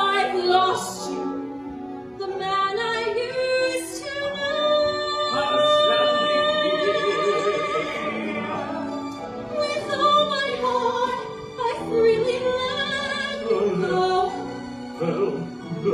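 Operatic-style singing from a stage-musical song, with long held notes and vibrato over musical accompaniment.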